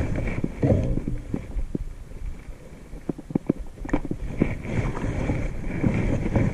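Low, gusting rumble of wind on the microphone, with a run of light clicks and knocks in the middle.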